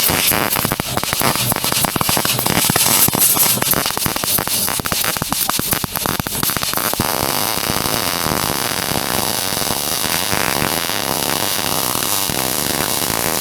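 Welder laying a bead on a steel exhaust pipe: a loud, continuous crackle that turns into a smoother, more even sizzle about seven seconds in. The steadier sizzle goes with a good, well-run weld, which is then called the best weld of the day.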